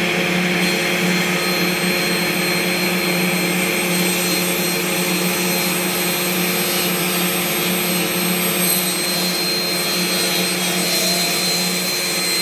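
Table saw running at full speed, its motor and spinning blade giving a steady, even whirring hum.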